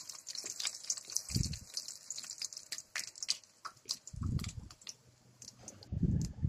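Dried red chillies, cumin seeds and bay leaves frying in hot mustard oil in a metal kadhai, a steady fine crackling sizzle. Three dull low thumps come through it, about a second and a half in, past four seconds and near the end.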